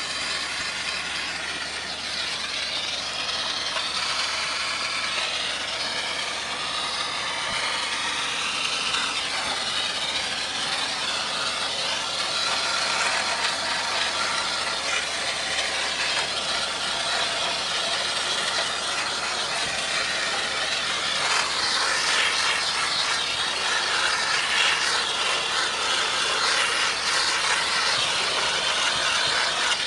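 A machine running steadily with a high whirring and hissing noise whose pitch wavers, getting a little louder about two-thirds of the way through.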